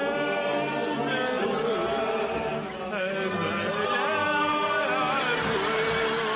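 Music with singing: voices holding long, chant-like notes that slide between pitches.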